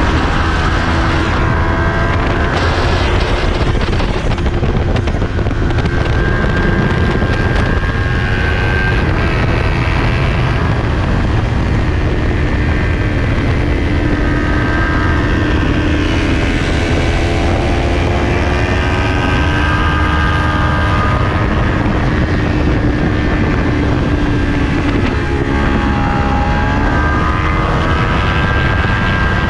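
Onboard sound of a 2020 Kawasaki Ninja 400's parallel-twin engine running hard at racing speed, under heavy wind buffeting on the microphone. The engine note holds steady through long corners, then dips and climbs again near the end.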